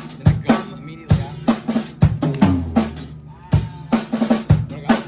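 Drum kit being played: bass drum, snare and cymbal hits in a busy, uneven pattern, with a deep thump and short ring on the heavier strokes.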